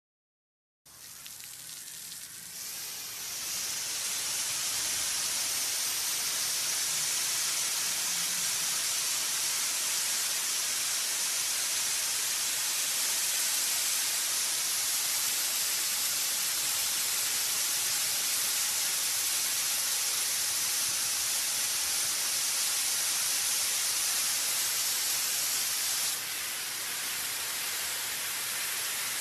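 Ship's water cannons spraying: a steady rushing hiss of falling spray that builds over the first few seconds after a brief silence, dipping slightly near the end.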